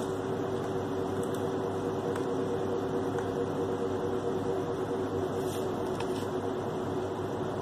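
Steady mechanical hum with an even hiss behind it, a constant room noise such as a running fan, holding level throughout.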